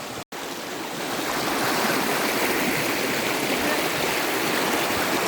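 Flowing water of a rocky stream at the top of a waterfall, a steady rushing hiss that swells over the first second and then holds. The sound drops out for a split second just after the start.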